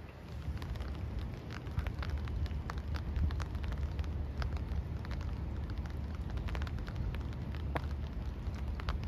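Outdoor ambience: a steady low rumble under many scattered, irregular crackling ticks.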